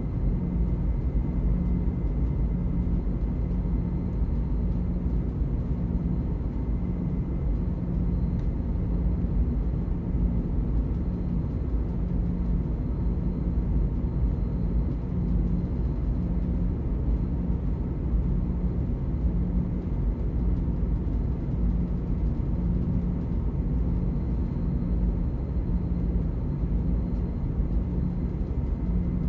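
Steady low drone of the ferry Blue Dolphin under way, engine rumble and hull vibration heard inside a cabin. A low hum in it swells and fades in a slow beat, over a faint steady high whine.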